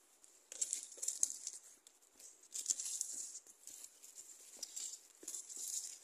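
Footsteps crunching and rustling through dry leaf litter and undergrowth on a forest trail, in irregular bursts with short lulls between them.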